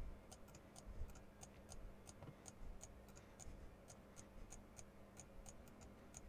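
Faint computer mouse clicks, light and sharp, about four a second, as items are picked one after another on screen.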